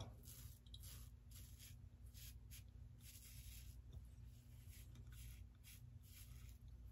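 Faint scratching of an Aylsworth DrakKant stainless-steel open-comb safety razor cutting stubble through shaving lather, in short strokes about one or two a second.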